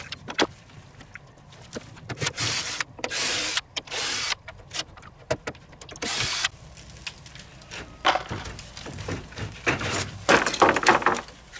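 Cordless drill-driver backing screws out of wooden siding boards in several short bursts. Near the end come a cluster of wooden knocks and clatter.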